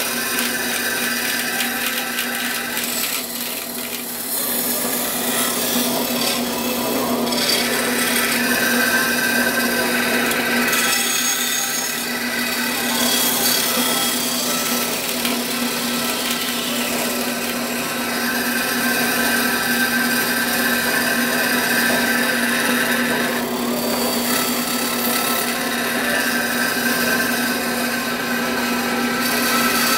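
Bandsaw running with a steady motor hum while cutting, the noise of the cut shifting every few seconds.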